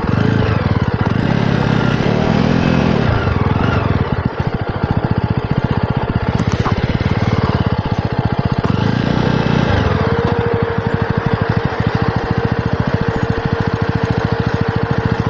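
Jawa 42 motorcycle's single-cylinder engine running steadily as the bike is ridden over a muddy dirt track, its exhaust beats coming fast and even.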